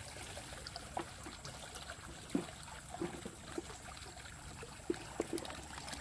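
Quiet pond-edge ambience: small soft water drips and plops at irregular intervals over a faint steady high hiss.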